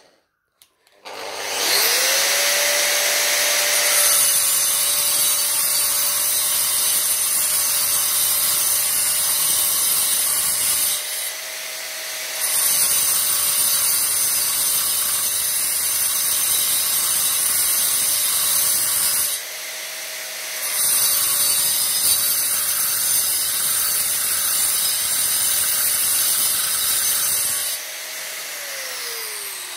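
Angle grinder with a 125 mm Bosch diamond metal-cutting disc spinning up about a second in, then cutting steel (10 mm ribbed rebar) in three long passes with two short pauses between them: a steady motor whine under a loud hissing cutting noise. Near the end it is switched off and the whine falls as the disc spins down.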